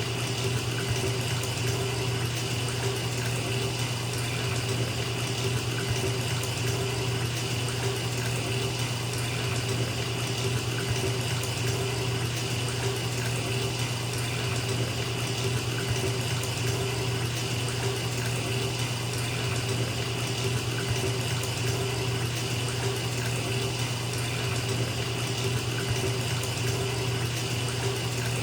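Tap water running steadily into a filling bathtub, a continuous splashing rush with a deep, even hum underneath.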